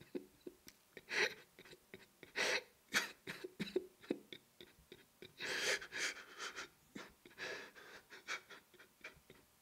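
A man breathing hard in ragged gasps and sighs, irregular breaths about a second apart, in distress.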